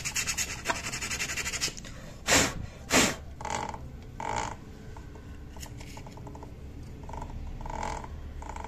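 Emery paper rubbed in quick strokes over a scooter's clutch lining, cleaning it, for about the first second and a half. Then two loud knocks less than a second apart, followed by fainter handling noises as the clutch assembly is moved.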